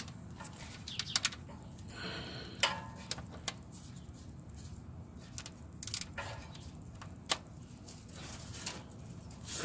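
Scattered metallic clicks and taps of a ratchet and socket working at a very tight oil drain plug, over a steady low hum.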